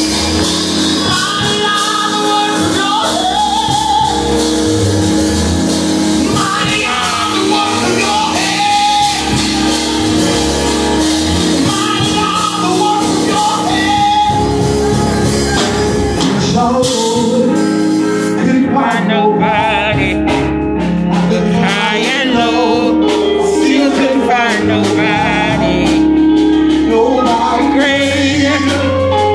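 A man singing gospel into a microphone over backing music, with wavering held notes in the second half.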